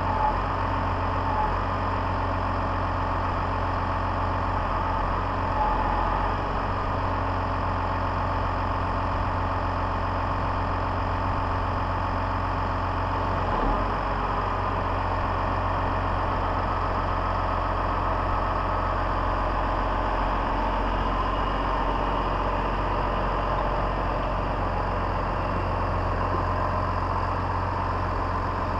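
Large farm tractor's diesel engine running steadily at low revs while it slowly tows a planter, with a single short clunk about halfway through.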